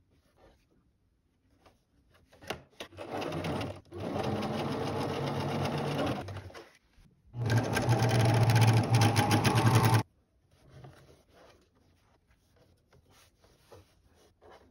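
Electric sewing machine stitching in three runs: a short one about 3 s in, a steady run of nearly three seconds from about 4 s, and a louder run from about 7 s until it stops sharply at about 10 s.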